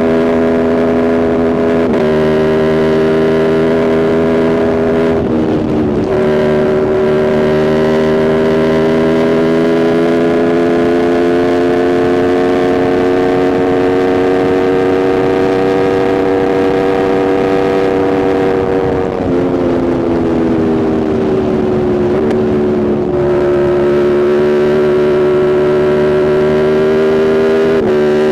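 2021 Aprilia RSV4's V4 engine running under way at steady cruising revs. The note climbs slowly over long stretches, with a few brief shifts and dips in revs.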